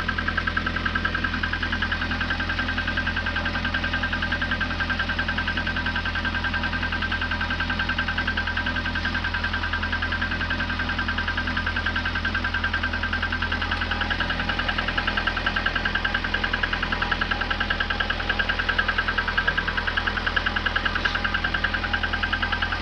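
VAZ 2110's 16-valve four-cylinder engine idling steadily with a fast, even knock. It is a cold-start knock that fades once the engine warms past about 50 °C and is gone at 80 °C.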